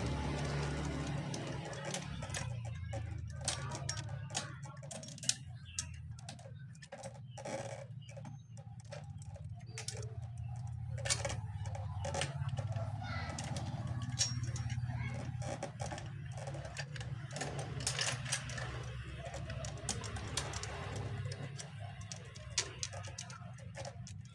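Scattered small metal clicks and clinks of chainsaw parts and tools being handled, over a steady low hum.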